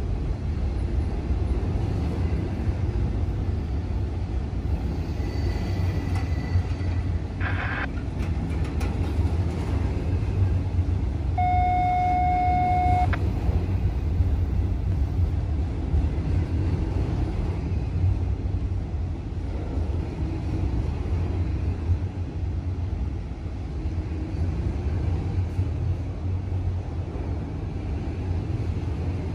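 Steady low vehicle rumble, with a brief single-note horn toot about twelve seconds in.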